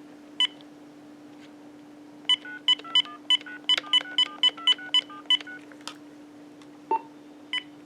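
Uniden EXS2080 900MHz cordless phone dialing out: a single key beep, then a quick run of about a dozen touch-tone beeps as the number is sent, and two more beeps near the end. A steady low hum runs underneath.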